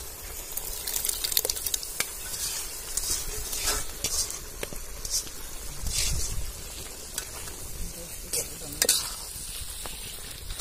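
Goat intestine gravy sizzling in a large iron wok while clotted goat blood is stirred in with a metal ladle. Short scrapes and clinks of the ladle on the pan come through the steady sizzle.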